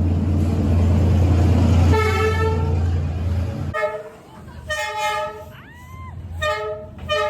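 A train passing close by with a heavy low engine rumble and a long horn blast starting about two seconds in. Both cut off suddenly near four seconds, and several short horn toots follow.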